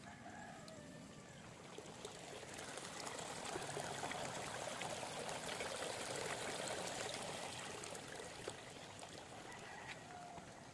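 Running water, swelling over a couple of seconds and fading away again near the end.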